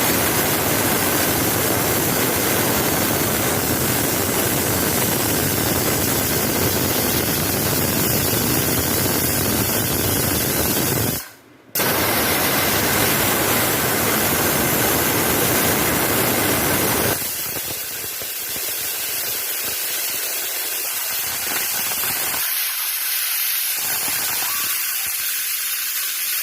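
Tempo pressure cooker whistle venting steam: a loud, steady hiss. It cuts out for about half a second near the middle, then resumes, and in the last third it carries on thinner, with less rumble, and slightly quieter.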